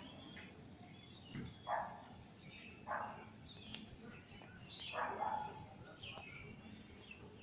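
Birds chirping now and then, with short high chirps and three louder, lower calls spread through.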